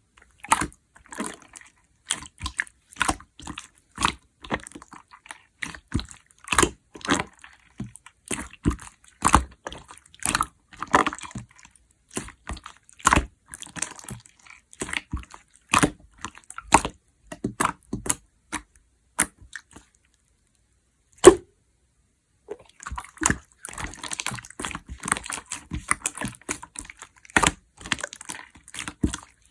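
Hands playing with a slime: sharp sticky pops and clicks, one or two a second. These stop for a moment about two-thirds of the way through, apart from one loud pop, then come back as denser crackling squelches.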